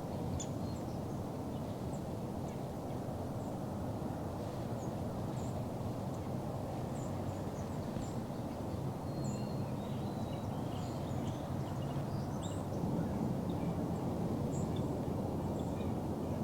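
Outdoor field ambience: a steady low background rumble with many faint, short, high bird chirps scattered throughout.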